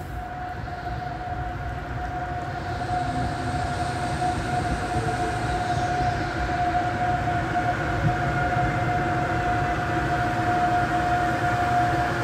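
Siemens EU44 Husarz electric locomotive hauling passenger coaches, drawing slowly into the station. A low rolling rumble grows louder as it nears, under a steady whine that holds one pitch throughout.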